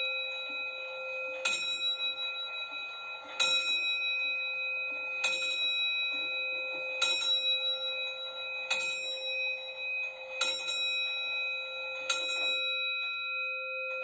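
Bell of an antique longcase clock striking the hour: seven evenly spaced strokes about every 1.8 seconds, each ringing on, with the last stroke's ring lingering near the end.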